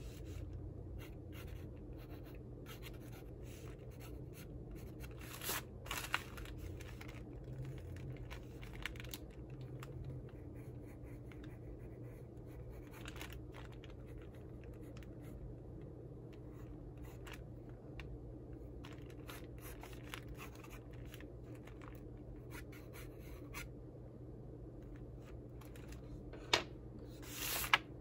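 Graphite pencil sketching on paper: light, irregular scratching strokes over a steady low background hum. A few louder knocks and rustles stand out, one about six seconds in and two near the end.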